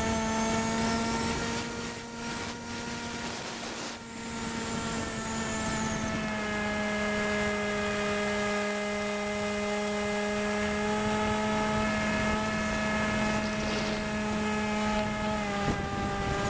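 RC airplane's motor and propeller heard from a camera on board in flight: a steady buzzing drone that drops slightly in pitch about six seconds in and rises again near the end, over the rush of air past the plane.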